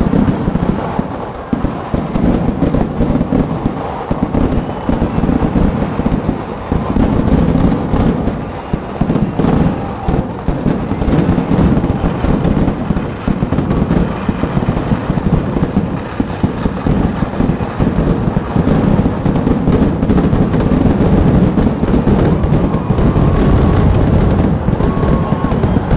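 Kerala temple fireworks (vedikattu) going off in a dense, unbroken barrage. The bangs come so fast they merge into one continuous rumble and crackle.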